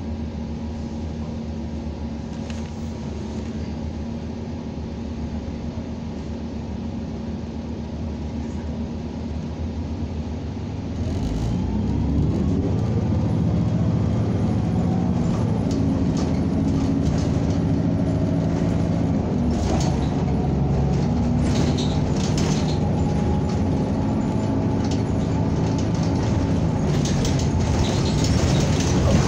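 Cabin sound of a NABI 45C-LFW natural-gas transit bus. It idles steadily at first. About eleven seconds in, the engine revs up as the bus pulls away, then runs on steadily with frequent rattles and clatter from the body.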